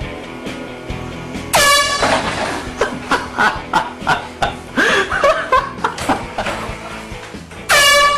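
Air horn blasted twice, a loud sudden blare whose pitch jumps up at the start, about a second and a half in and again near the end, with short loud cries between the blasts.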